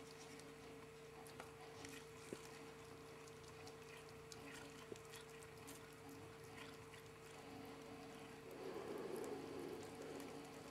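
Ferrets and a cat licking vitamin paste from a squeeze tube: faint scattered licking clicks and smacks over a steady low electrical hum, briefly a little louder near the end.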